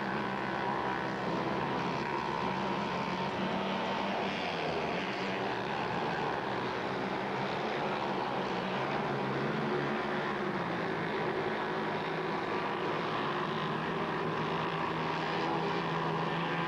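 Mini bike engines racing on a dirt track: a steady, buzzy engine drone whose pitch drifts down and up as the bikes work through the corners and pass.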